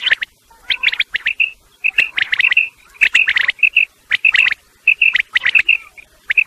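Common quail calling, repeated over and over as a hunting lure: clusters of quick, sharp notes about once a second, interleaved with short clear whistled notes.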